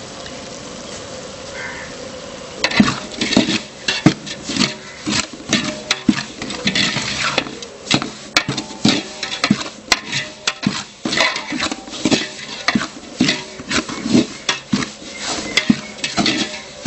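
A long-handled metal ladle scraping and knocking against a large metal pot as oil-roasted semolina is stirred. It starts about three seconds in and goes on in quick, irregular strokes.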